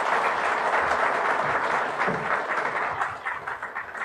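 Audience applauding, dense at first and thinning into scattered separate claps in the last second or so.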